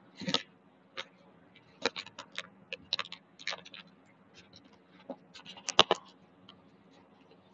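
Irregular light clicks and knocks, scattered unevenly over several seconds, with the loudest cluster about six seconds in.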